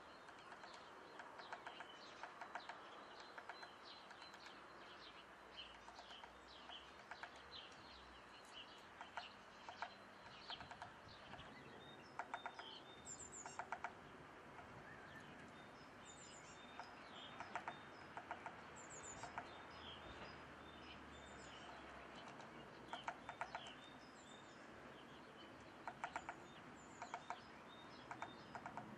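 Small birds chirping faintly: short high calls and quick runs of clicky notes every second or two, over a steady background hiss.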